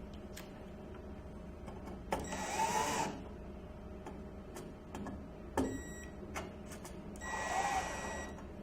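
A power screwdriver drives in the screws that fasten a fire alarm mounting plate to the device box. It runs in two bursts of about a second each, each one rising and then falling in pitch, with a few light clicks in between.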